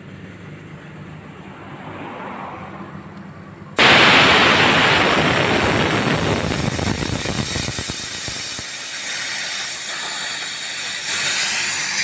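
LPG gas hissing out of an opened copper refrigeration pipe, starting suddenly about four seconds in and running on loud and steady: the gas is flushing trapped oil out of a clogged refrigerator evaporator line.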